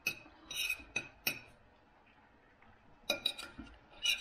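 Metal knife and fork clinking and scraping against a plate as food is cut and picked up: a few sharp clinks in the first second and a half, a short lull, then a quicker run of clinks near the end.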